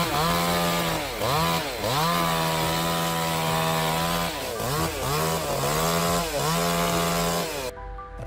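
Chainsaw engine running at high revs, its pitch sagging and picking back up several times as it works through wood, then cutting off abruptly near the end.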